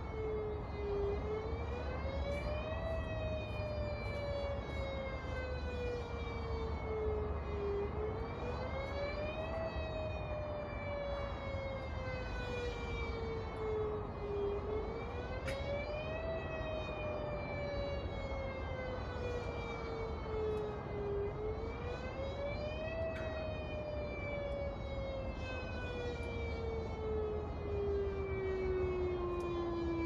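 A mini Whelen siren wailing. Its pitch climbs quickly and then sinks slowly, in a cycle that repeats about every seven seconds, and the last fall runs longer and lower than the others.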